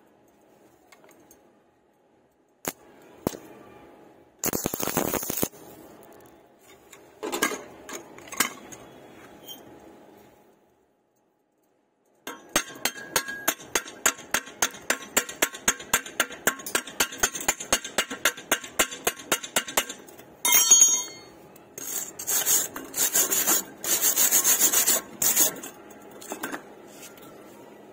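Chipping hammer knocking slag off a fresh stick-weld bead on steel tubing: after a few scattered knocks and a short scrape early on, a long run of quick sharp taps, about four a second, then a few seconds of harsh scraping as the bead is cleaned bright.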